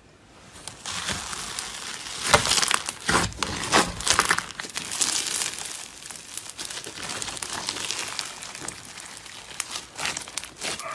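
Pink slime full of tiny beads crackling and popping as it is stretched and squeezed by hand, with a run of sharper pops about two to four seconds in.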